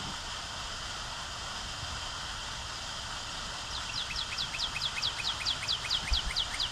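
Steady outdoor background hiss. From about halfway through, a bird calls a rapid run of short, high, downward-sliding notes, about four a second.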